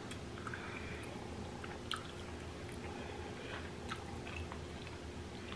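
Faint chewing and small wet mouth clicks of people eating soup and meat, with two slightly sharper clicks about two and four seconds in, over a low steady hum.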